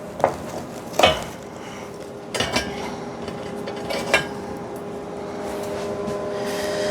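Tools and metal pieces being handled on a workbench: a few sharp clinks and knocks spread over several seconds, over a steady machine hum.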